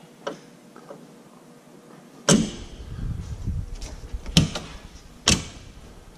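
Curtis tractor-cab door being worked by hand on its hinges and latch. There are a few light clicks, then three sharp clunks of the door against the cab frame: one about two seconds in and two close together near the end.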